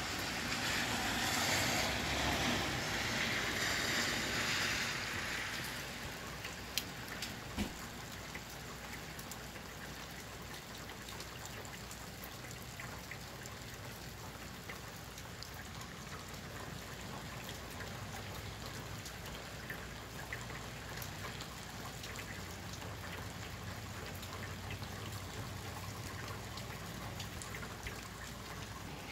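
Steady rain falling, with scattered single drops ticking close by. A breeze rushes louder through the first five seconds or so, then dies down.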